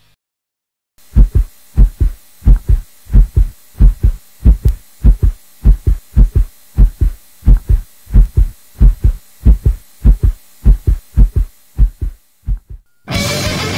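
Heartbeat sound effect: a steady double thump, lub-dub, about one and a half beats a second, starting about a second in and fading near the end. Rock music cuts in just before the end.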